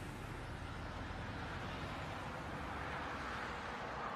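Steady road and engine noise inside a moving vehicle's cabin, picked up by a dashcam: an even hiss with no distinct events.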